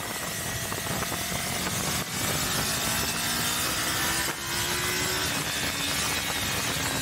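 Yamaha sport motorcycle engine running at speed through a corner, its note rising slowly, under heavy wind rush on the onboard microphone.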